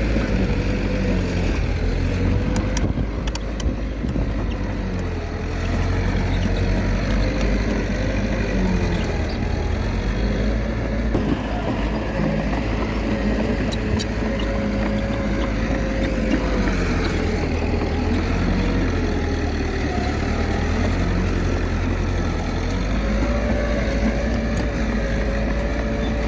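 Komatsu D21A bulldozer's diesel engine running steadily, its pitch slowly rising and dipping as the load changes.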